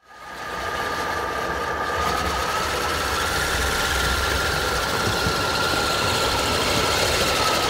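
The brushless electric motors of a radio-control tracked truck whine steadily as it pushes snow with its plow, fading in at the start.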